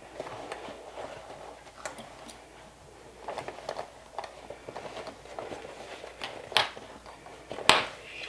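Fabric and bag pieces being handled and rustled, with scattered light ticks and two sharp clicks near the end.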